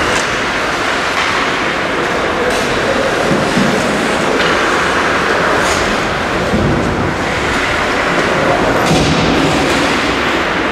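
Ice hockey rink during play: a steady scraping and rumble of skates on the ice, with a few sharp clicks of sticks and puck.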